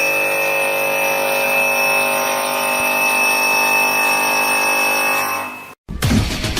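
Industrial stone-cutting machine running with a steady high whine, which fades out about five and a half seconds in. Rhythmic music starts right after.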